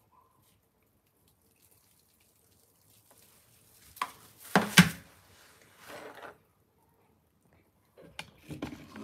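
A brief splash of running water about halfway through, with a fainter second splash soon after. Near the end come knocks and rubbing as the phone is picked up and moved.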